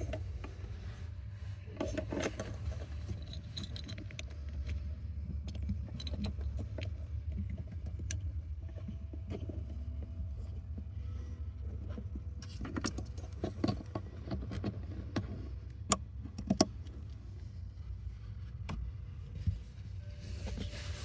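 Plastic wiring-harness connectors being handled and pushed together at an accelerator pedal, giving scattered clicks and rattles over a steady low hum. A few sharper clicks come about three-quarters of the way through.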